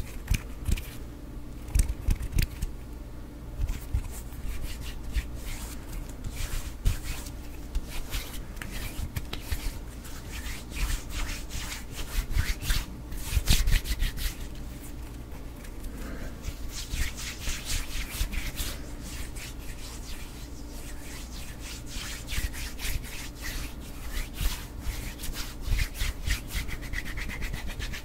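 Close-miked hand sounds: palms and fingers rubbing and sliding together, giving a dry skin-on-skin swishing with many small crackles and taps. The hiss swells in longer rubbing strokes about two-thirds of the way through and again near the end.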